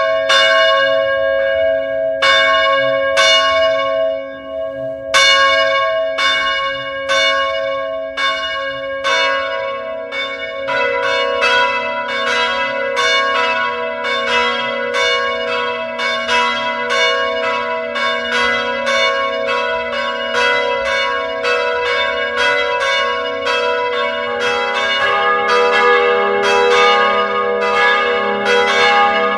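Church bells ringing. At first a bell strikes about once a second, each stroke ringing on into the next. From about ten seconds in, more bells join in a quicker, overlapping peal.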